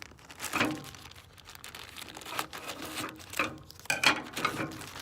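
Packaging being handled and crinkled while a bike lock is taken out of its box, with irregular rustles and a few sharp clicks, the loudest a little before the end.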